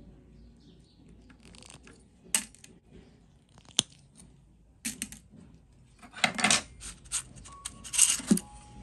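Spring-loaded wire cutters snipping a coil of gold wire into jump rings: three sharp clicks a second or so apart. Then a pile of small gold jump rings jingles and rattles in a metal bowl, loudest near the end.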